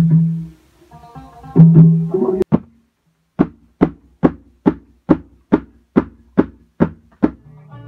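A few seconds of plucked-string music with a strong low note, then a short pause. Then a hand-played drum struck about ten times at an even beat, a little over two strikes a second, each hit ringing briefly.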